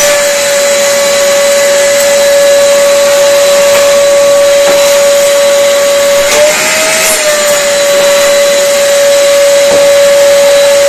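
Einhell TC-VC 1820 S wet/dry shop vacuum running, a loud steady motor whine over rushing air through the hose. Its pitch rises briefly about six seconds in and again near the end.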